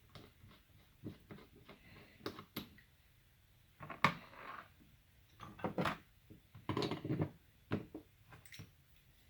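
Small parts of a Fleck 5600 water softener control valve being handled and taken apart by hand: irregular clicks, taps and light knocks, loudest about four seconds in and again around six to seven seconds in.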